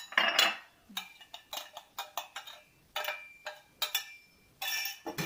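Minced meat scraped and tipped from a small bowl into a large mixing bowl, followed by a run of short clinks and scrapes of the bowls as the stuffing is mixed by hand.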